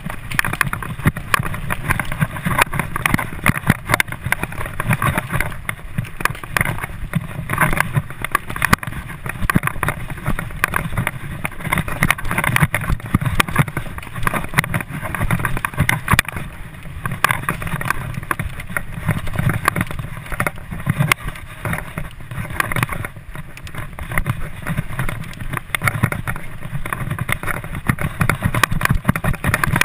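Mountain bike ridden fast over a bumpy dirt trail, heard from a rider-mounted camera: a steady rush of wind and tyre noise, broken by many quick rattles and knocks as the bike jolts over the ground.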